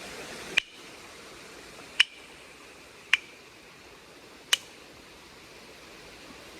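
Caribou antler striking a Cheshire quartzite cobble four times at irregular intervals of a second or more: sharp, short clacks of antler on stone, knocking flakes off the rock.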